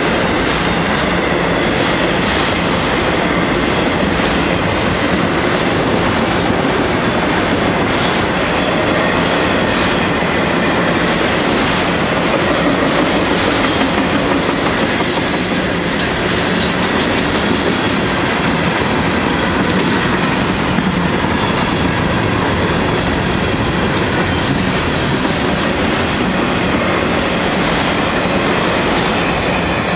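Freight cars of a CSX train rolling past at close range, a loud, steady rumble of wheels on rail with brief high screeching at times. The sound eases slightly at the end as the last car goes by.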